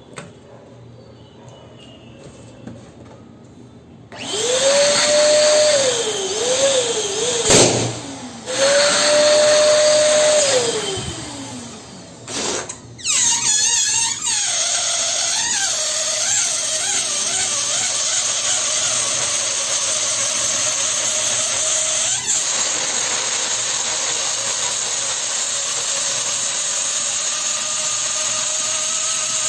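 Electric balloon pump running, blowing air into balloons: a whining tone rises, wavers and falls twice in the first half, then after a short break the pump runs steadily with a level hum to the end.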